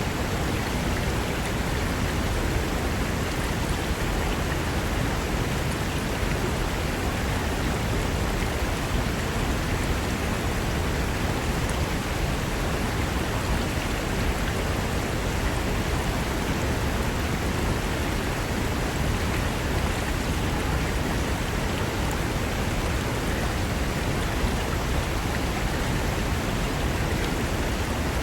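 Fast mountain river rushing over rocks: a steady, unbroken roar of running water.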